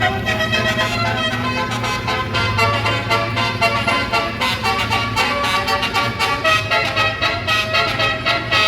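Indonesian bus telolet horn playing a melody: a set of air-horn trumpets sounding stepped, rhythmic tones, with the bus engine humming steadily underneath.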